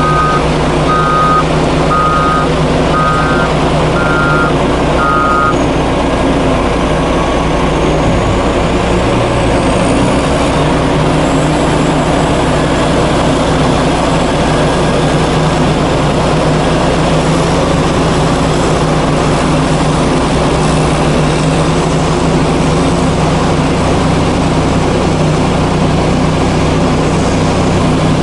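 Heavy diesel engines of a Scania coal-hauling truck and a CAT motor grader running steadily. A reversing alarm beeps about once a second and stops about five seconds in.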